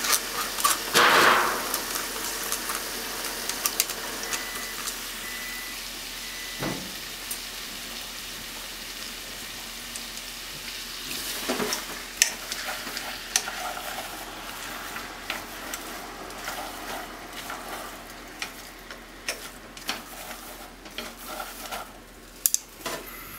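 Chicken and diced onion sizzling as they fry in a pot, with a loud burst of sizzle about a second in as the onions are tipped in. From about halfway a wooden spatula stirs them, adding frequent short clicks and scrapes against the pot.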